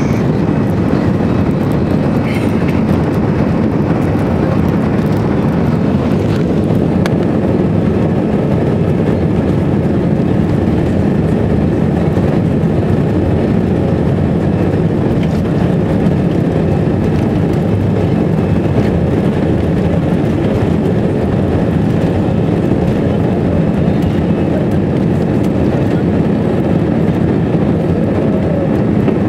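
Airbus A340-300's four CFM56 turbofans at takeoff power, heard inside the passenger cabin as a loud, steady rumbling rush of engine and air noise.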